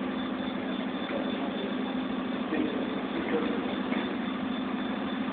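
A steady mechanical hum, low and even.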